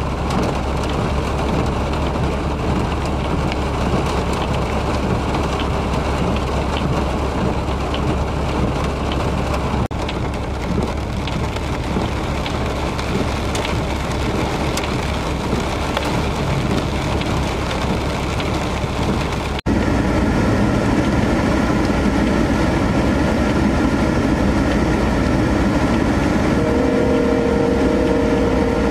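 Steady rain falling during a thunderstorm. About two-thirds of the way through, the sound jumps louder and a steady droning hum joins the rain.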